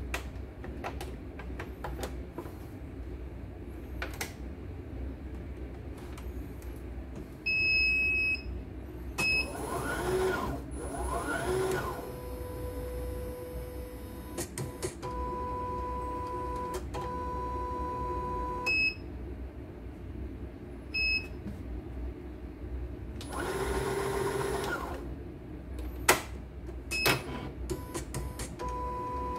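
Computerized embroidery machine beeping at touch-panel button presses, with clicks, and its frame-drive motors whirring in rising spurts as the embroidery frame moves. In between comes a steady high hum from the drive. The machine is being run to check a fault in which its stitch spacing has gone wrong.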